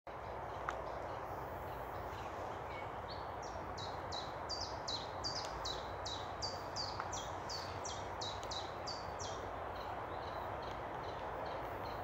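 A small songbird singing a run of about eighteen short, high, repeated notes, each dropping in pitch, at roughly three a second, starting about three seconds in and stopping a few seconds before the end. Under it runs a steady rushing background noise.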